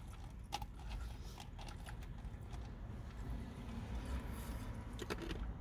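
A few soft mouth clicks and smacks from eating a chicken wing and sucking sauce off the fingers, over a low steady rumble; two of the clicks fall close together near the end.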